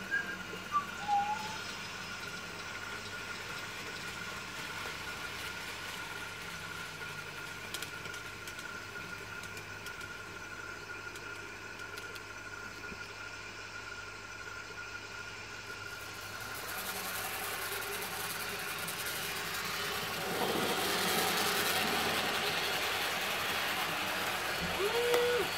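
N-scale model train running on the layout track: a steady small-motor whine with wheel and rail noise. It grows louder over the last several seconds as the locomotive approaches. A few short high squeaks near the start and one near the end.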